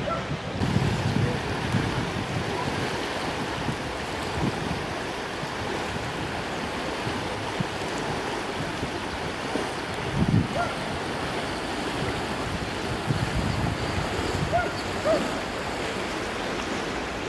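Steady rush of a flood-swollen river, with gusts of wind buffeting the microphone a few times, notably about ten seconds in and again near the end.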